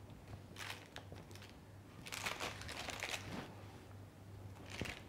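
Knife slicing through a baked red velvet cheesecake brownie: faint crunching, scraping strokes of the blade through the crust and the paper beneath, the longest cluster about two seconds in, over a steady low hum.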